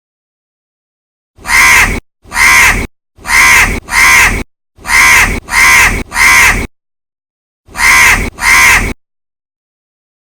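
A crow cawing: nine loud, harsh caws, each about half a second long. There is a run of seven, a pause of about a second, then two more.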